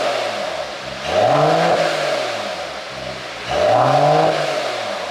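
Mercedes-Benz CLS 450 4Matic's 3.0-litre inline-six, running a pop-and-crackle exhaust tune, blipped twice. Each time the revs rise quickly and fall back, the blips about two and a half seconds apart.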